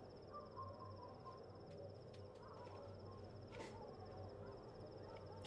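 Faint cricket trill, a high, steady pulsing chirr that breaks off briefly a few times, over quiet room tone, with a faint soft tap about three and a half seconds in.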